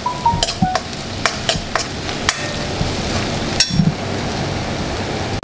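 Shallots, green chilli and coriander leaves frying in coconut oil over a high flame, with a steady sizzle. A metal spoon stirs them, scraping and clicking against the pan about seven times. The onions are nearly browned and their water has cooked off.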